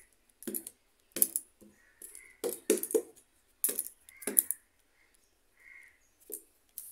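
Short clinks and taps at a kadhai, about ten in irregular succession, as balls of pakora batter are dropped one by one into hot oil for deep frying.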